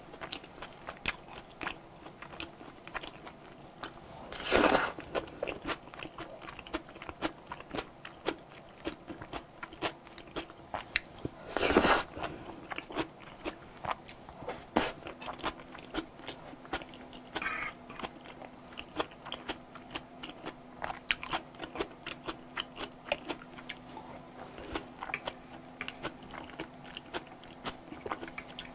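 Close-miked wet chewing of mouthfuls of cream pasta, with many small smacking mouth sounds and two louder, longer noisy moments about four and a half and twelve seconds in.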